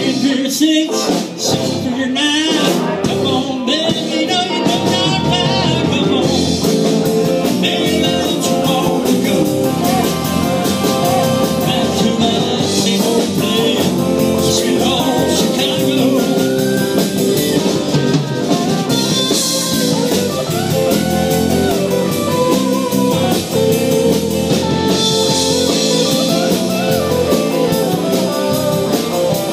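A live band playing a blues-rock number on electric guitars and drum kit, amplified through PA speakers.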